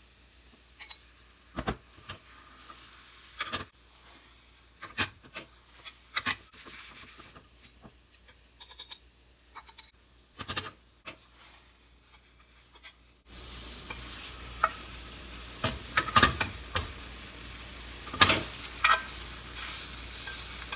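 Egg sizzling gently in an oiled frying pan while a utensil scrapes and taps against the pan, rolling up layers of Japanese rolled omelette. The sizzling becomes louder about two-thirds of the way through.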